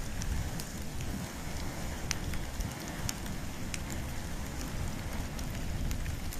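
Wood and bamboo burning in an open fire: a steady low rumble of flames with scattered sharp crackles and pops.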